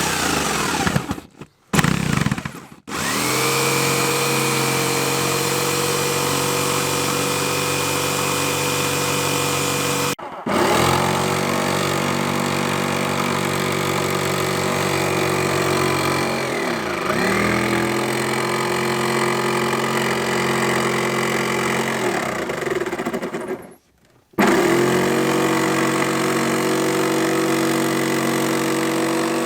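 Electric jigsaw cutting a round porthole opening, its motor running at a steady pitch. It starts up about three seconds in, stops and restarts twice, and sags in pitch briefly around the middle as the blade takes load.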